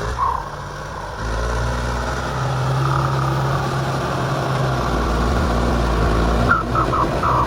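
Truck engine idling with a steady low rumble. Short high chirps come in near the end.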